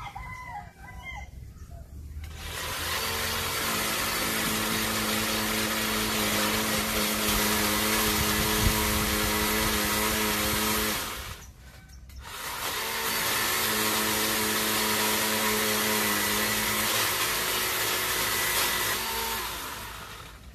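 Worx WG368E 40V cordless electric chainsaw with a 14-inch bar, cutting branches: the motor spins up with a rising whine and runs steadily for about eight seconds, winds down and stops briefly, then spins up again for about seven seconds more before winding down near the end.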